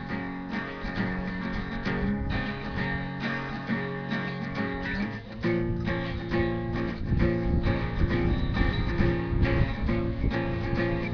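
Background music: a guitar-led instrumental with plucked and strummed strings, shifting to a new chord about five seconds in.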